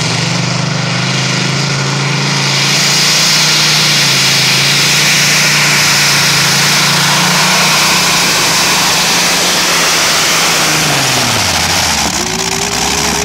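Modified pulling tractor's engine running flat out under load as it drags the weight sled, a steady high-revving note with heavy exhaust noise that grows louder about two and a half seconds in. About eleven seconds in the revs drop away as the engine comes off full throttle at the end of the pull.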